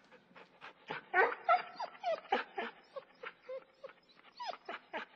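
Puppies yipping and whimpering: a rapid run of short high cries, several bending up and down in pitch, two or three a second.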